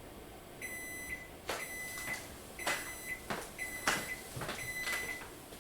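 Electronic kitchen timer beeping five times, about once a second, with a high steady tone: the baking timer going off. Sharp clicks and knocks sound between the beeps.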